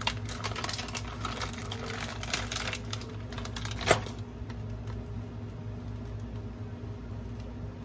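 Plastic pepperoni packet crinkling and crackling as it is torn open by hand, ending in one sharp snap about four seconds in. After that come quieter handling sounds over a steady low hum.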